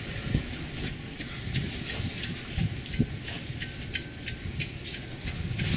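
Small dogs moving about on a concrete porch: many quick, irregular light ticks and clicks with short high chirps, over low shuffling.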